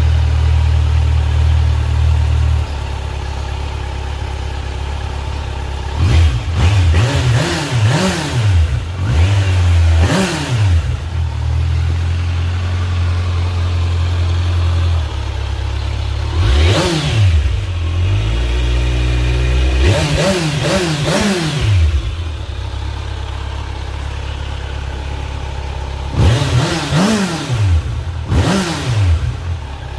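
2023 Kawasaki Z900's 948 cc inline-four on its stock exhaust, idling, then blipped several times in quick bursts, the revs rising and dropping straight back to idle between groups of blips.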